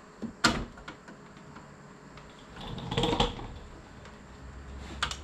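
Sharp plastic clicks and a short scraping rattle of a tool prying at a fender liner's plastic push-pin clips. One loud click comes about half a second in, a busier rattle about three seconds in, and another click near the end.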